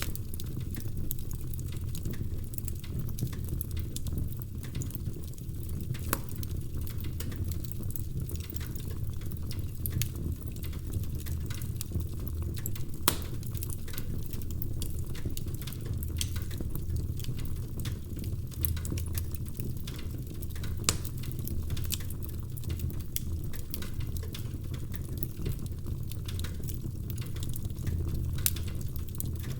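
Wood fire burning in a fireplace: a steady low rumble of the flames with frequent small crackles and a few louder pops of the burning logs.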